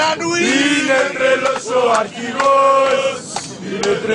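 A group of male football supporters chanting and singing together, loud and close in an airliner cabin, holding one long note a little past the middle.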